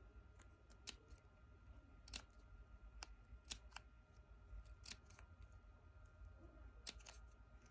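Scissors snipping tiny slits around the edge of a small paper circle covered in clear tape: faint, short snips at uneven intervals, roughly one every half second to second and a half.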